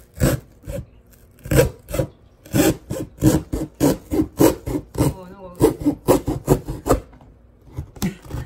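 Short knife blade sawing through corrugated cardboard in quick back-and-forth rasping strokes, about two or three a second, with a brief pause near the end.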